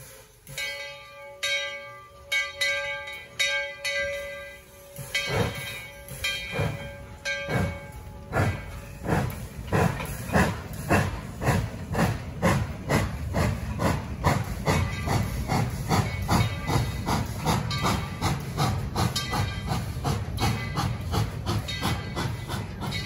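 Steam locomotive's bell ringing, about two strokes a second, then exhaust chuffs starting about five seconds in, slow at first and quickening steadily as the engine pulls away with steam hissing.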